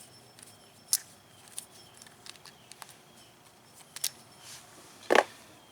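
Scattered light clicks and taps of small metal parts being handled: the bolts just removed from the engine head and the tools. A louder knock comes about five seconds in.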